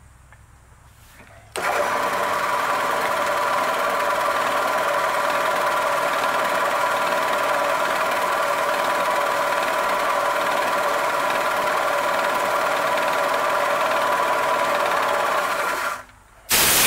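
Vertical milling machine spindle starts about a second and a half in and runs steadily, a whine with several tones, while a half-inch end mill plunges into a metal block to cut a half-inch spot face. It stops near the end, followed by a short, loud hiss of air blowing the chips away.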